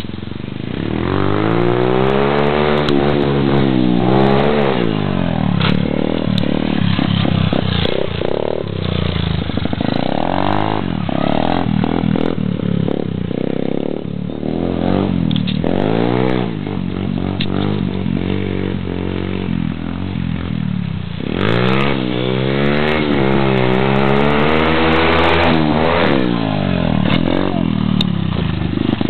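Small pit bike's engine revving up and down again and again as it is ridden, its pitch swelling and dropping in repeated long surges.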